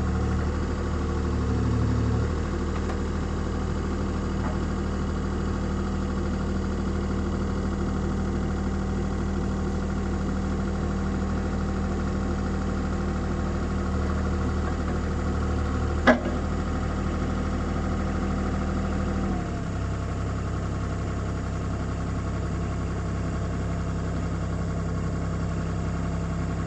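CAT 303C CR mini excavator's diesel engine idling steadily, its note dropping slightly about two seconds in and again near twenty seconds in. A single sharp click about sixteen seconds in.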